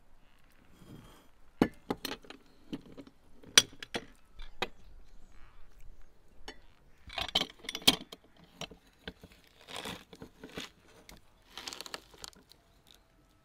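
A hand-held metal lever press used to juice pomegranate seeds being handled: irregular sharp clinks and clacks of metal and glass as it is tapped on a glass bowl, opened, loaded and closed, with a few louder knocks.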